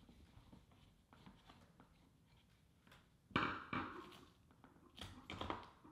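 Faint handling of hard plastic: a few short clicks and knocks as a factory tweeter is worked loose and lifted out of its plastic A-pillar trim mount, in two short clusters about halfway through and near the end, with near silence before them.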